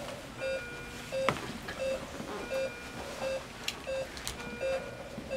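Patient monitor beeping with each heartbeat: a short pitched beep repeating evenly about every three-quarters of a second, with a few sharp clicks in between.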